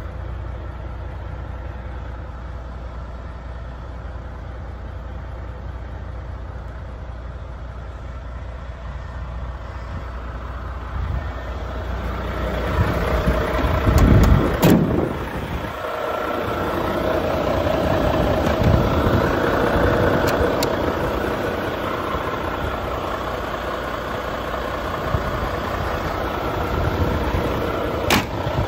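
Volvo FMX 460 truck's 13-litre six-cylinder diesel engine running steadily at idle, growing louder about halfway with a brief loud rush, then running on at a higher, louder hum.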